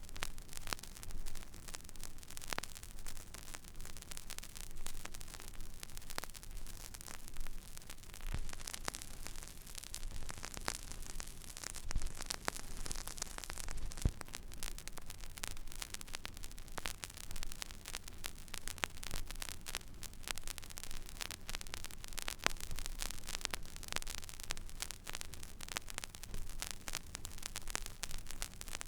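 Stylus riding an empty vinyl record groove: steady surface hiss with scattered crackles and small pops over a low hum. Two louder pops stand out near the middle.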